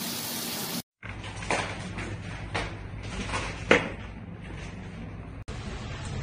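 Several sharp knocks and bumps of a cardboard box being handled, the loudest a little past the middle, over a low steady hum.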